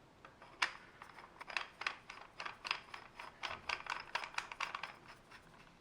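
Silencer being fitted onto the barrel of a metal 1911-style air pistol: a run of light clicks and scrapes of metal parts handled together.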